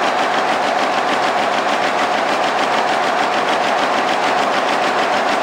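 Air-jet loom weaving denim at full speed: a loud, steady, rapid and even clatter as each weft pick is beaten up, in a shed full of running looms.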